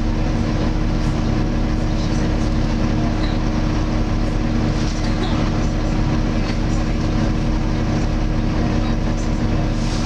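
Volvo B7TL double-decker bus heard from inside the upper deck: its engine running with the loud, steady, vacuum-cleaner-like whine of its cooling fan, the 'hoover' sound these buses are known for.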